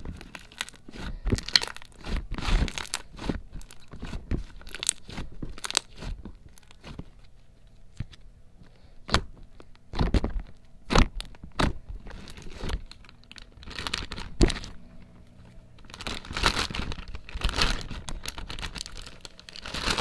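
Slime being squeezed, stretched and folded in the hand, giving irregular wet crackles and sharp pops as air pockets burst.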